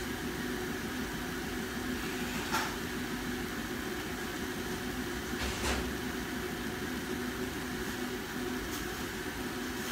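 A steady low electrical hum with a few faint ticks about every three seconds.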